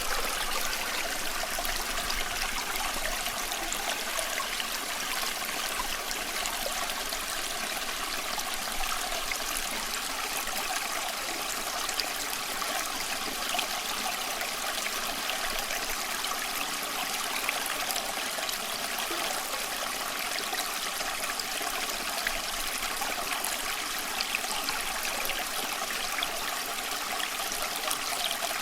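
Small stream flowing steadily, water trickling and babbling over stones with small splashes and bubbles throughout.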